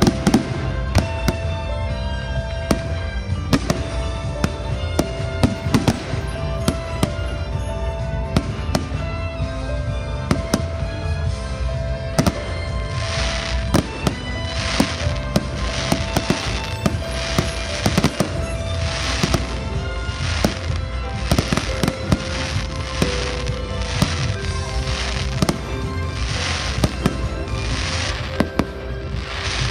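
A fireworks display: many sharp bangs and crackles, one after another, over music playing steadily.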